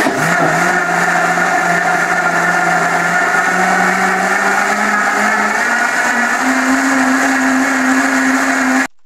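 JustBuy 2200-watt blender (model 888/G5200) motor running at full power with no rattle. Its hum climbs slowly in pitch in steps as the speed is turned up, then cuts off abruptly near the end.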